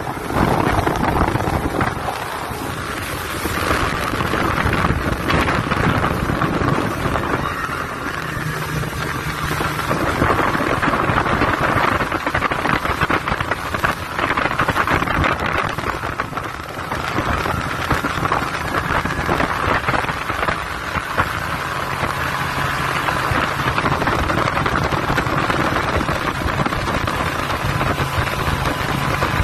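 Motorboat running at speed while towing an inflatable tube ride, its engine under the steady rush of the wake and spray, with wind buffeting the microphone.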